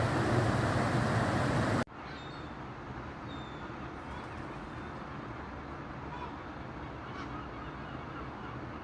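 Loud, steady rushing noise that cuts off abruptly about two seconds in. It gives way to quieter outdoor street ambience: a murmur of distant voices and a few short, high bird chirps.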